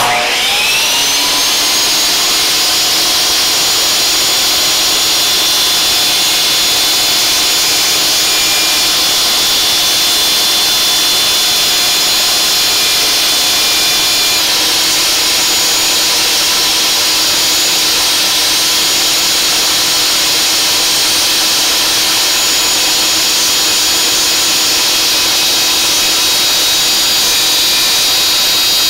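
Table saw switched on: the motor and blade spin up with a rising whine over the first second or two, then run steadily. The edge of a wooden board is slowly turned against the blade's front teeth, shaving it round.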